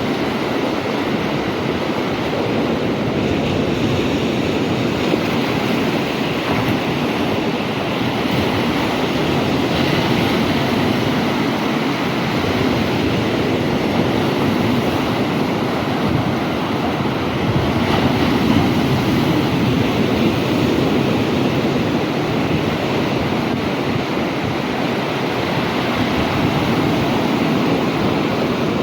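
Big sea waves breaking and washing up the shore in a continuous surging rush that swells and eases, with wind on the microphone.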